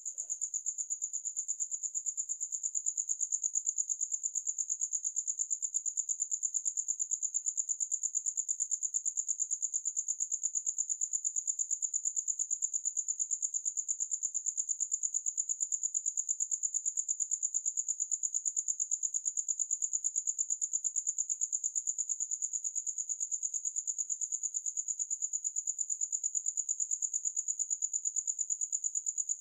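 Crickets trilling: one continuous, steady, high-pitched chirr that pulses rapidly.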